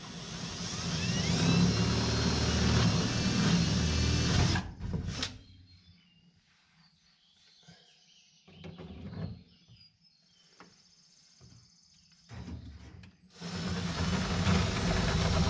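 Cordless drill drilling into the wood of the door and framing: one long run of about four and a half seconds whose whine climbs as it spins up, a few short bursts, then another long run near the end.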